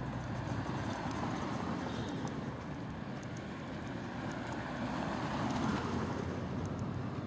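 Street traffic: cars driving past on the road alongside, one passing a little louder about five seconds in.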